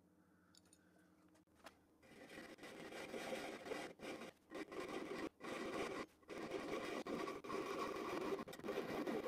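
Hand fret saw's fine blade cutting a thin aluminum strip, a steady rasping of back-and-forth strokes that starts about two seconds in and breaks off briefly every second or so.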